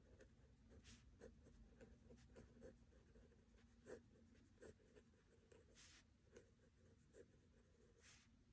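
Faint scratching of a pen writing by hand on notebook paper: many short strokes and small taps, with a longer stroke about six seconds in and another near the end.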